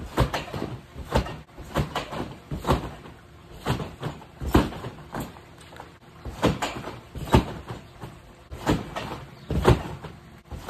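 Someone bouncing on a netted backyard trampoline: a thump from the mat and springs with each landing, about one bounce a second.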